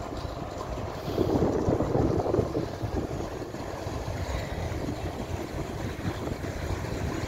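Freight train rolling past: a Bombardier TRAXX class 285 diesel-electric locomotive hauling pear-shaped silo hopper wagons, heard as a steady low rumble that swells for a moment about a second in.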